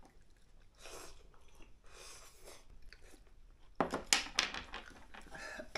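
People slurping Northeastern Chinese sauerkraut soup (suancai tang) from bowls: two drawn-out slurps in the first half, then a louder cluster of smacking and chewing about four seconds in.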